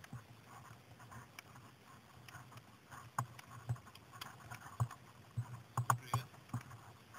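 Faint, irregular clicks and knocks, with a few sharper ones in the second half, over a low murmur.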